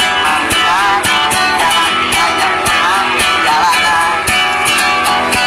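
Acoustic guitar strummed and picked in a steady rhythm, with a man singing a wavering melody over it.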